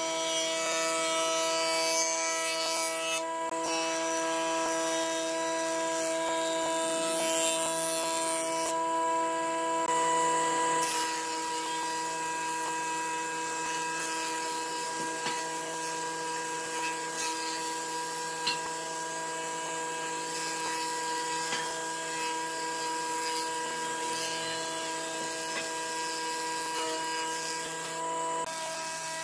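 An electric power tool running steadily with a constant whine, the pitch shifting slightly about eleven seconds in.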